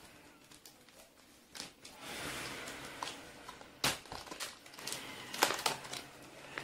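Clear plastic shrink wrap being picked at and peeled off a cardboard phone box: crinkling and crackling, with several sharp snaps in the second half.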